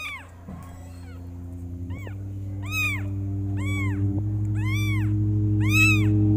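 Young kitten meowing about six times in short high calls that rise and fall in pitch. Under them, background music of held chords grows louder, changing chord twice.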